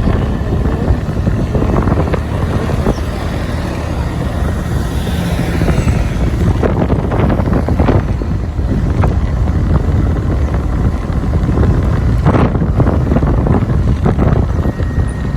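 Wind rushing and buffeting on the microphone of a moving Honda Click 125i scooter, over steady engine and road noise. A few short knocks come through partway in and again near the end.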